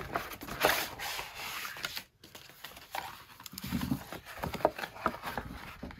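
Stiff paper rustling, crackling and tearing as a kraft-paper mailer is ripped open by hand and a paper envelope is slid out of it, in a run of irregular sharp crackles.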